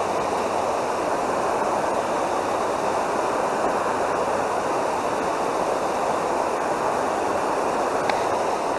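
Water pouring over a low dam's spillway, a steady rushing that does not change.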